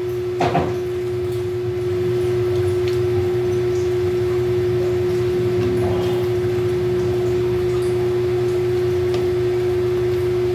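A steady hum held at one constant pitch, the loudest sound throughout, with faint scrapes and ticks of wooden spatulas stirring jackfruit in a frying pan.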